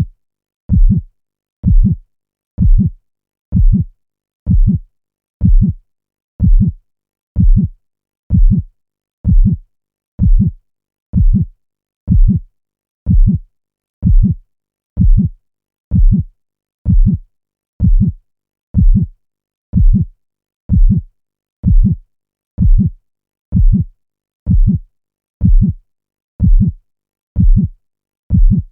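Heartbeat sound effect: a steady, low double thump (lub-dub) repeating about once a second, with silence between beats.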